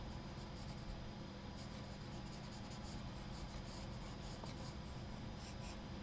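Charcoal pencil scratching faintly on sketchbook paper, in a few short runs of quick strokes.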